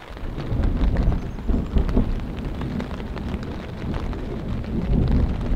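Thunder rumbling low and long, coming in suddenly at the start and carrying on throughout, over steady rain pattering on a tarp.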